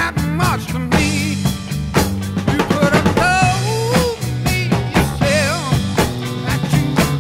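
Background rock music with a drum kit keeping a steady beat under a bass line and a gliding melody.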